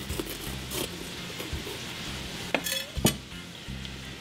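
Chef's knife cutting around the stem of a green bell pepper on a wooden cutting board, with a few sharp clicks and knocks, the loudest about three seconds in. Ground pork sizzles steadily in a frying pan underneath.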